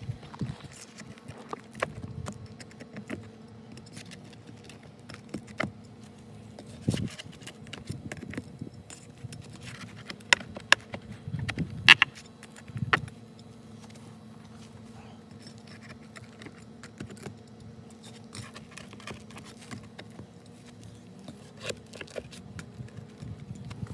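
Scattered metallic clinks, taps and knocks, as of tools and hardware being handled, with a cluster of sharper clicks about halfway through, over a steady low hum.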